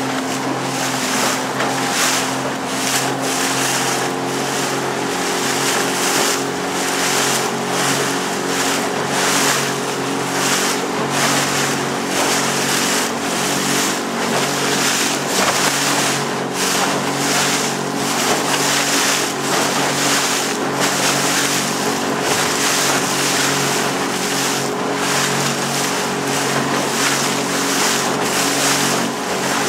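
A small boat's motor running steadily at cruising speed, with loud rushing wind and water noise that swells and fades about once or twice a second.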